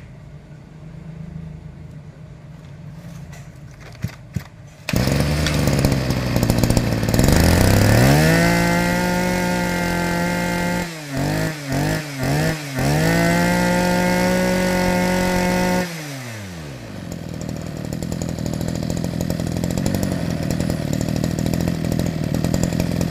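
Small two-stroke engine of a Maruyama BIG-U KC2300B brush cutter, test-run. It runs quietly at first, gets louder about five seconds in, is revved up to high speed and held, blipped three times, then drops back to idle.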